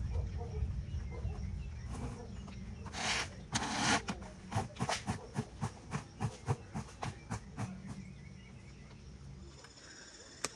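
A broom sweeping cut grass: two longer scrapes about three seconds in, then a quick run of short strokes, about four a second.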